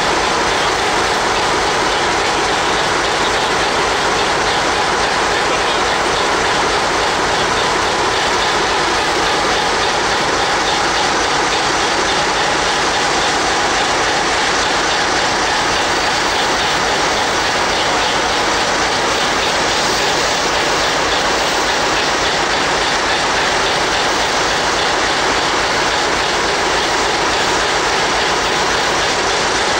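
Dv15 diesel locomotive standing with its engine running: a loud, steady noise that does not change.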